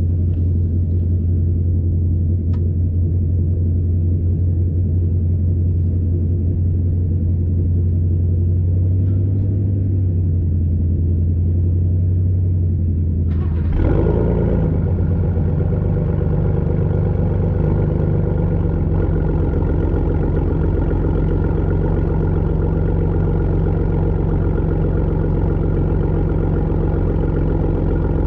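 2018 Ford F-150 Raptor's 3.5-litre twin-turbo V6 idling through a Corsa Xtreme exhaust, a steady low drone. About halfway through, a brief blip changes the note, and it runs on steadily, brighter than before.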